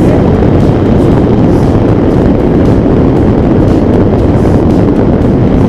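Loud, steady wind rush buffeting the camera's microphone during a tandem parachute descent under an open canopy.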